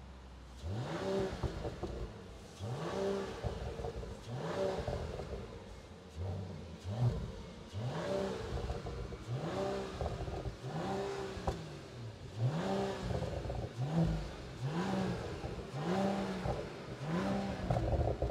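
Mercedes-AMG CLE53's 3.0-litre turbocharged inline-six, stationary, idles for a moment and is then revved about a dozen times in quick succession. Each rev rises and falls in pitch.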